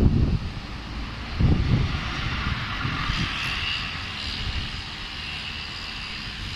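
Mercedes-Benz articulated city bus driving past without stopping and pulling away, its engine running with a steady high whine from about halfway in. Low rumbling surges at the start and about a second and a half in.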